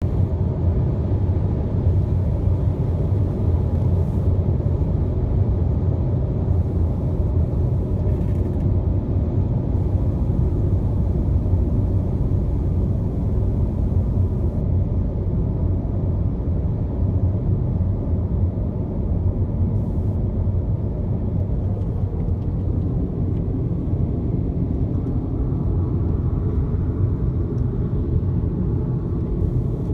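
Steady low rumble of vehicle road noise on the highway, unchanging throughout.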